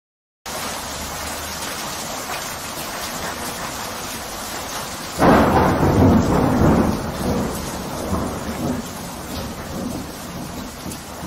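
Thunderstorm: steady rain hiss, and about five seconds in a loud clap of thunder that rumbles on and fades over a few seconds.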